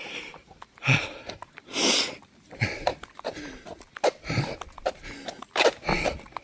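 A runner breathing hard while running uphill: loud, rasping breaths about once a second.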